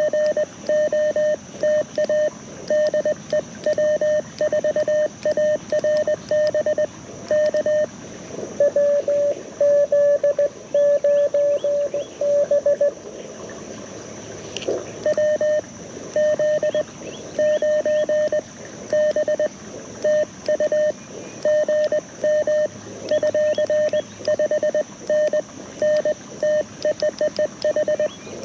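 Morse code (CW) tones from an LNR Precision Mountain Topper MTR4B QRP transceiver, played through a small JBL Go 2 speaker: a steady beep keyed on and off in dots and dashes. From about a third of the way in, a slightly lower-pitched signal sends for a few seconds, followed by a single click, before the higher tone resumes.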